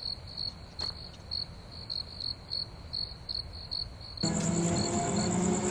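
Night crickets chirping in a steady, even rhythm of high chirps, about four a second. About four seconds in the crickets give way to a suddenly louder sound of several steady low tones, growing louder.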